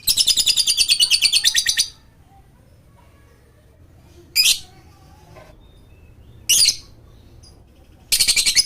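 Lovebird chattering in rapid, shrill trills, the 'ngekek' style: a fast run of about a dozen pulses a second lasting about two seconds, two short single calls, then another fast run starting near the end.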